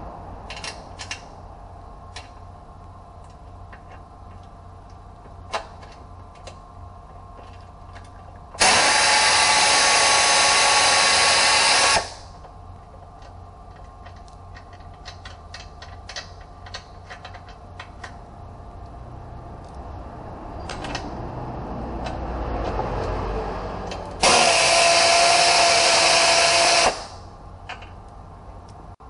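Pneumatic air ratchet running in two steady bursts of about three seconds each, about a third of the way in and again near the end, spinning out bolts on a car's front bumper reinforcement. Light clicks and clinks of the tool and bolts being handled between the bursts.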